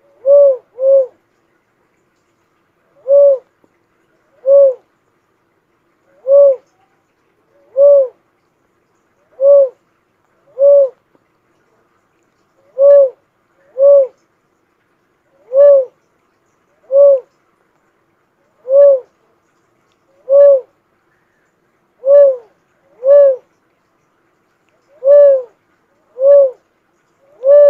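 Philippine cuckoo-dove calling: a long series of short, low single coos, each rising and falling slightly in pitch, repeated every one to two seconds and sometimes two in quick succession.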